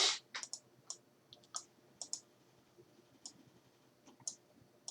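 Faint, irregular clicks of a computer mouse and keyboard, a dozen or so spread unevenly.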